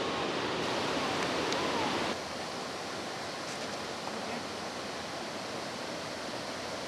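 Steady rush of water spilling over the gates of an old stone canal lock, a continuous even noise that drops a little in level about two seconds in.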